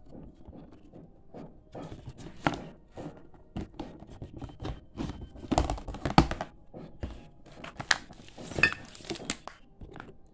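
Packaging being handled and opened: irregular crinkling and tearing of wrapping, with a series of knocks and thunks, the sharpest about six seconds in.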